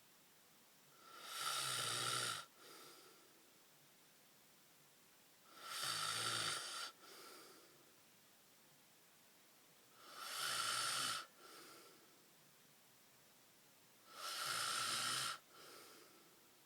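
Snoring: four long snores about four seconds apart, each swelling up and cutting off sharply, followed by a short, softer breath.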